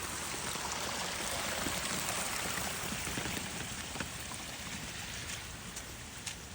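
Flash-flood runoff rushing steadily, a little quieter toward the end, with a few light ticks in the last couple of seconds.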